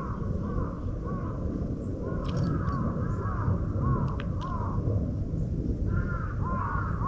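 Crows cawing over and over, several calls overlapping near the end, with a few short high chips from small birds and a steady low background rumble.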